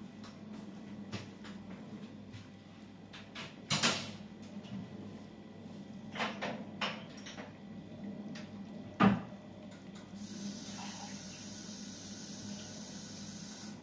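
Kitchen cupboard doors and items being handled: scattered clicks and knocks, the loudest a sharp knock about nine seconds in. A faint steady hiss comes in over the last few seconds.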